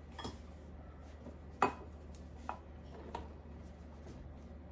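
A few light clinks and knocks of a mixing bowl and spatula as flour is tipped and scraped from one bowl into a stainless steel mixing bowl. The sharpest knock comes about a second and a half in, over a low steady hum.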